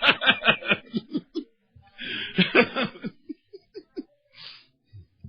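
A person laughing in quick repeated bursts, a second round about two seconds in, then trailing off into a few single breaths of laughter.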